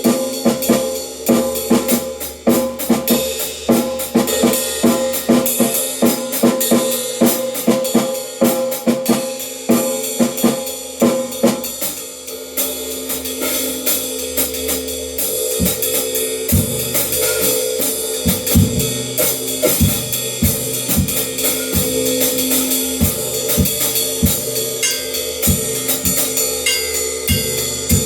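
A drum kit being played: kick, snare and cymbals in a busy pattern that about twelve seconds in gives way to slower, spaced heavy hits over a held ringing tone and cymbal wash.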